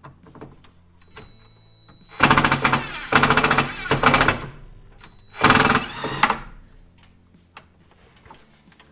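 Impact driver hammering in short bursts, backing out screws: a brief whine, then three quick bursts about two seconds in, and one more a little after halfway.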